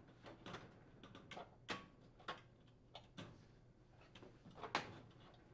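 Faint, irregular clicks and light knocks of an induction range's glass-ceramic main top being slid back onto its frame, with two louder knocks, one just under two seconds in and one near the end.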